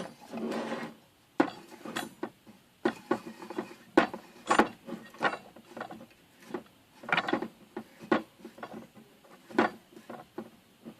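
A homemade welded steel drill-press vise being handled while its jaw is opened out: a scrape in the first second, then irregular sharp metal clicks and knocks.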